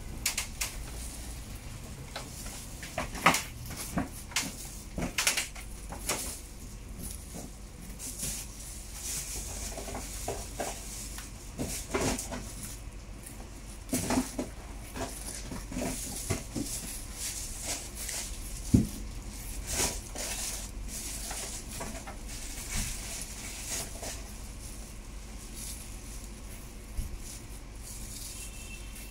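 Knife blade knocking and scraping on a plastic cutting board and steel tray while a roast Peking duck is carved, in irregular knocks over a steady high hiss.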